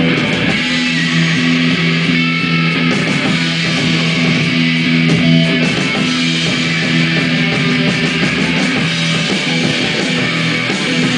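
Live rock band playing loud: electric guitars, bass guitar and a drum kit, with long held low notes under a constant wash of cymbals.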